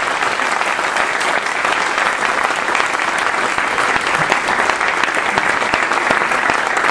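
Audience applause, steady and sustained clapping from a seated crowd.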